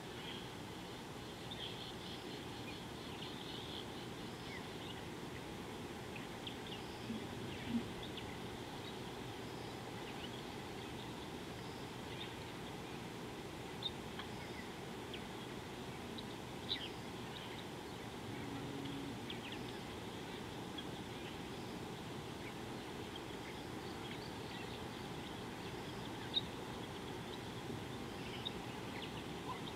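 Small birds chirping in short, scattered calls over a steady low hiss of outdoor ambience, with a few louder sharp notes standing out now and then.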